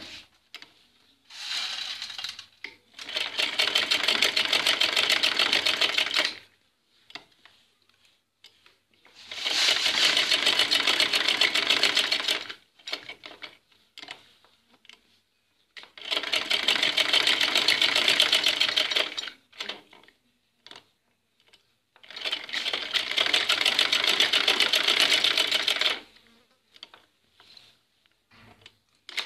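Domestic sewing machine stitching in rapid runs of about three seconds, five runs in all, with short pauses between them that hold small clicks and the rustle of cloth being repositioned. The needle is sewing through cloth layered over buckram.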